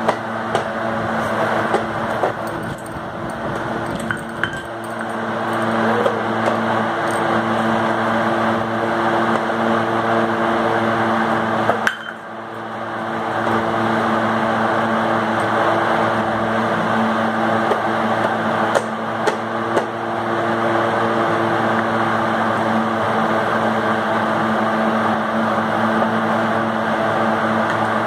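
A few light taps and knocks on a small plastic toy drum over a loud, steady mechanical hum.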